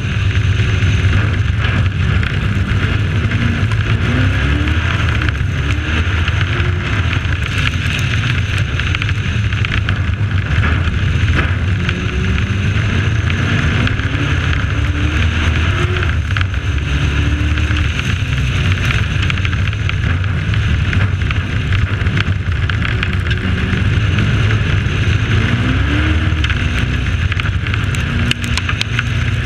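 Race truck engine running hard at racing speed, rising in pitch again and again as it accelerates, over a heavy, steady rush of wind and track noise on the onboard microphone.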